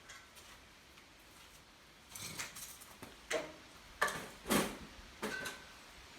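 About five separate knocks and clunks, spaced irregularly over a few seconds, from tools and parts being handled.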